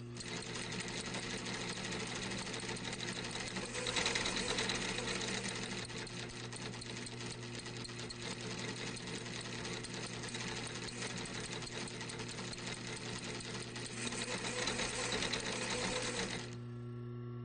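Industrial sewing machine stitching at speed, a fast, steady needle clatter that grows louder about four seconds in and again near the end. It stops about a second before the end, leaving a steady low hum.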